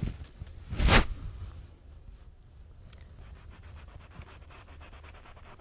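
Oil paintbrush scrubbing on stretched canvas in rapid, even strokes from about three seconds in. A single dull thump about a second in is the loudest sound.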